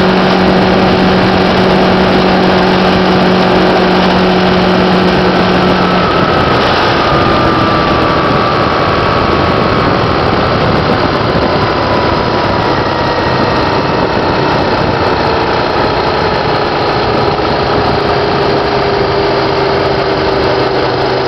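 Motorcycle cruising at highway speed: a loud, steady rush of wind noise over the engine's drone. The engine note drops about a quarter of the way in, then slowly falls further.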